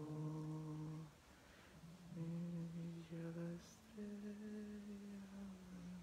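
A single voice singing a slow melody in long held notes without clear words, pausing about a second in and then carrying on.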